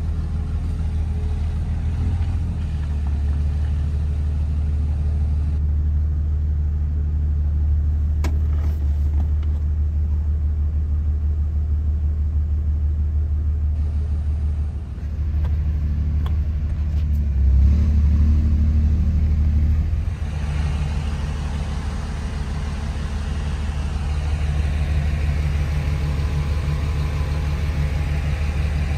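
Cummins turbo-diesel inline-six of a Dodge Ram pickup, heard from inside the cab, running as a low steady rumble while the truck drives slowly. The rumble grows louder for a few seconds about two-thirds of the way in, and a wider hiss joins for the last third.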